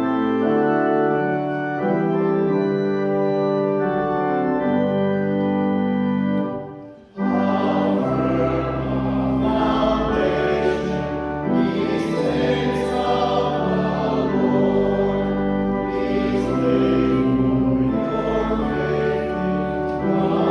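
Organ playing a hymn introduction in held chords, which stops briefly about seven seconds in. Then the congregation sings the hymn together with the organ.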